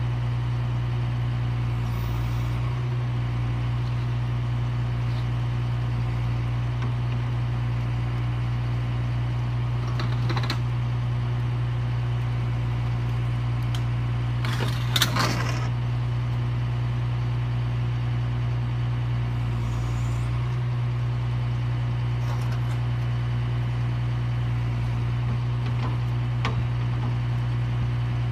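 Bucket truck engine running steadily at idle, a constant low hum, with a brief burst of crackling about halfway through.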